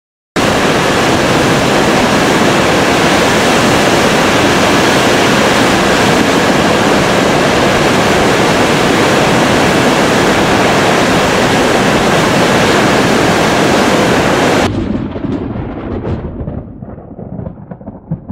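Loud, steady roar of rushing flash-flood water. About 15 seconds in it cuts abruptly to a quieter, uneven low rumble.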